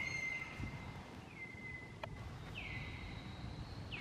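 Repeated high-pitched animal calls, about four, each sliding down and then held briefly on one note, over low outdoor background noise.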